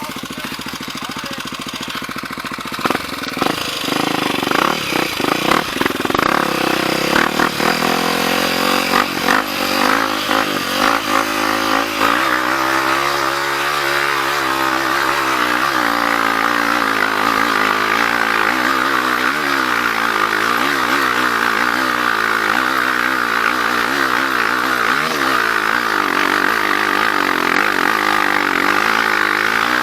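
Dirt bike engine on a trail ride. It runs quietly for the first few seconds, then revs up and down with the throttle, with scattered knocks. From about halfway on it holds a steadier, higher note that rises and falls gently.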